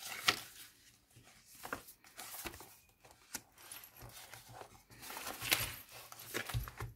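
Paper rustling and crinkling with irregular sharp clicks as the thick, mixed-paper pages of a handmade junk journal are flipped by hand. Near the end there is a louder flurry of rustling and a thump as the bulky book is closed.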